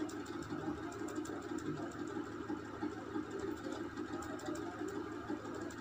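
A steady, low background hum with no speech.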